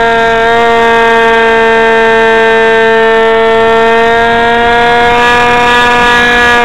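Electric motor and propeller of a Teksumo foam flying wing in flight, heard from the camera on the airframe: a loud, steady whine whose pitch rises slightly about five seconds in.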